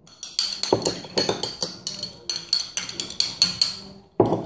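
Metal spoon stirring fast in a small glass cup, clinking against the glass several times a second with a bright ringing tone. A louder thump comes near the end.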